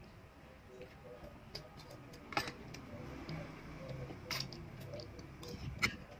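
Metal spoons clinking and scraping against ceramic bowls of thick champorado (chocolate rice porridge), with a few sharper clinks spread through.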